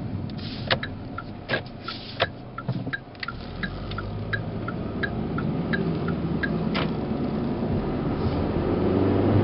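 Car turn-signal indicator ticking in an even tick-tock rhythm, about one and a half cycles a second, over engine and road noise in the cabin of a 2011 Kia Optima SX turning a corner, with a few louder clicks among the ticks. The ticking stops about two-thirds of the way in, and the turbocharged four-cylinder engine grows louder as the car pulls away.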